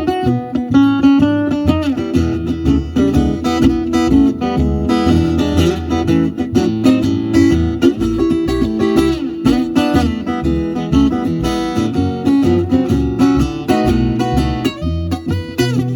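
Acoustic guitar playing an instrumental break in a blues-rock song, strummed chords with picked single notes over a steady beat.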